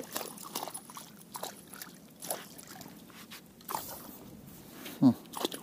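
A hooked pike thrashing at the surface as it is reeled up to the boat: irregular small splashes and sloshing of water.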